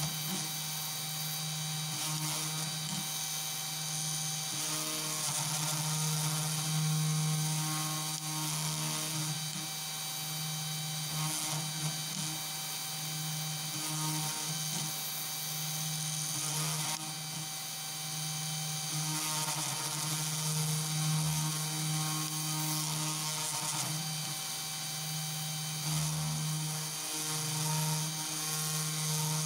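CNC2418 router's spindle motor running steadily while a pointed engraving bit mills the copper off a PCB blank along the traces. Shorter whining notes from the stepper-driven axes come and go every second or two as the tool moves.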